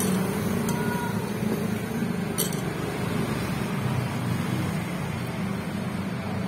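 A fork and spoon clinking lightly against a soup bowl a few times while eating meatball soup, over a steady low background hum.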